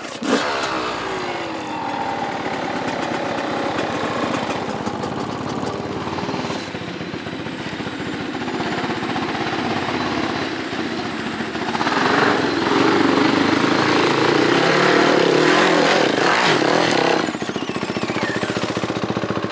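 Dirt bike engines running: a steady engine sound through most of the stretch, growing louder with revving from about twelve seconds in, then dropping suddenly to a steadier idle a few seconds before the end.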